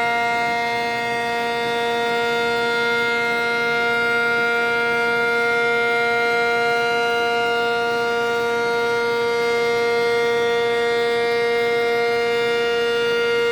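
Air-raid (civil-defence) siren sounding one steady tone, held at the same pitch without rising or falling.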